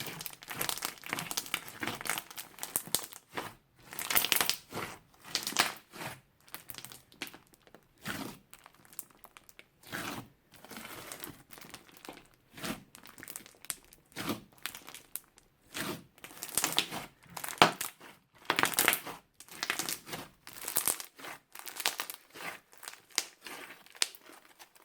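Crunchy slime being squeezed and pressed by hand, giving irregular bursts of crackling crunches about once a second.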